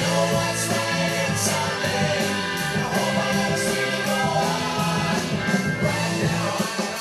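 A song with singing and a band playing from a vinyl record on a Pioneer PL-7 automatic turntable.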